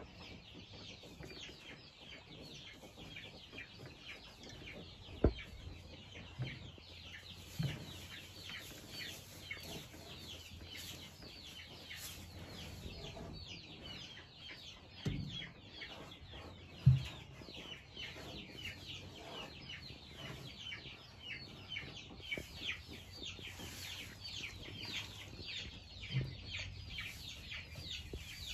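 Many birds chirping without pause, a dense stream of short, high, falling chirps, with a few dull knocks now and then, the loudest about two-thirds of the way through.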